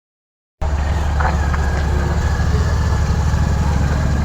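A steady, loud low rumble of outdoor noise that starts abruptly about half a second in.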